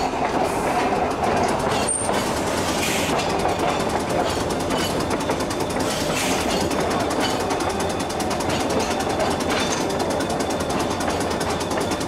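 Electric trolley car running along the track, heard from on board: a steady rumble of wheels on rails with fast, even clicking.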